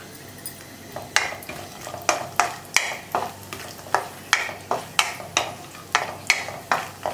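Wooden spatula stirring and scraping cashews, almonds and raisins frying in ghee in a metal kadai, with a faint sizzle. About a second in, the scraping strokes start and come about two to three a second.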